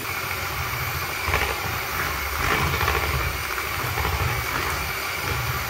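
Bosch electric hand mixer running steadily on its lowest speed, its wire beaters whisking softened butter and condensed milk into a cream in a plastic bowl.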